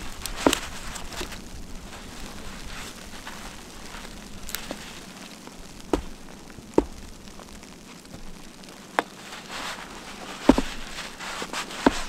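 Chopping blows landing on a snow-covered dead log: about seven sharp woody knocks at irregular intervals, over a steady hiss.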